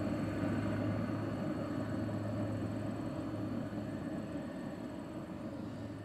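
Atwood RV water heater's propane main burner running with a steady low rumble, slowly fading. Its air shutter is set for a clean blue flame.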